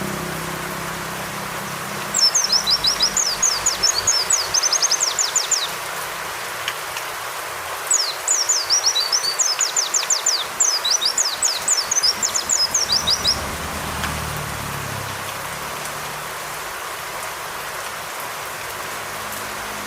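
White-eye (pleci) song: two bouts of rapid, high, sharp downslurred notes, each lasting a few seconds, over a steady rain-like hiss.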